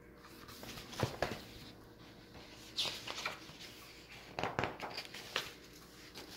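Handling noise as a picture book is picked up and held up: a series of short rustles, scrapes and soft knocks of the book's pages and cover.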